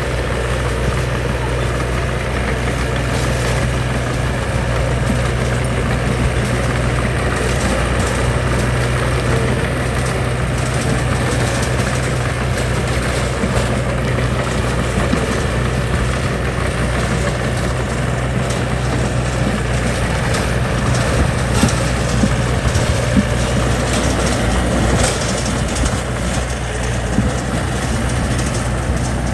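Diesel engine of heavy earthmoving machinery running steadily, with a few short knocks about two-thirds of the way through.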